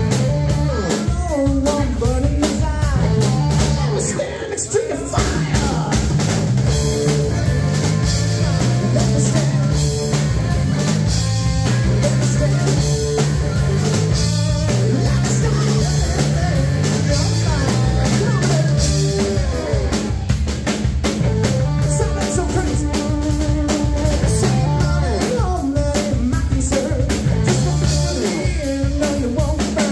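Live rock band playing loud and steady: distorted Les Paul-style electric guitar, electric bass guitar and a drum kit keeping a steady beat, with a man singing lead.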